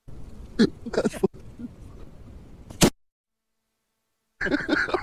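A single short rifle shot cracks about three seconds in and is the loudest sound here. Around it are brief snatches of voices, and the sound cuts out abruptly between them.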